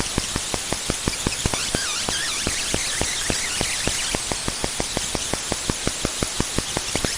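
Digital glitch sound effect: static hiss with a rapid, slightly uneven train of sharp clicks, about six a second, and faint warbling chirps.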